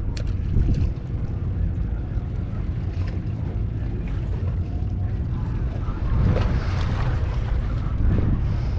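Wind buffeting the microphone with a steady rumble, swelling louder for a couple of seconds about six seconds in.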